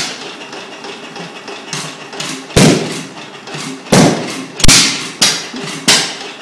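Single-cylinder Bentall Kangaroo stationary engine running and firing unevenly. Sharp exhaust bangs come at irregular gaps, about five of them in the second half, with a quieter steady mechanical running sound in between. This is the rough running that the owner says was fixed after the restoration.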